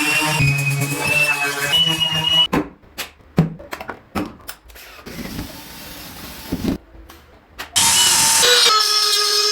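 Background music that breaks off for about five seconds, leaving woodworking tool sounds: several sharp knocks and a quieter steady noise, like a small power tool running. The music comes back near the end.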